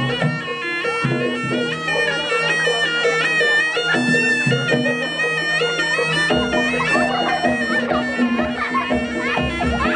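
Kuda lumping (jaranan) ensemble music: a shrill reed trumpet plays a wavering melody over steady held low tones, and drums thud in heavily from about six seconds in.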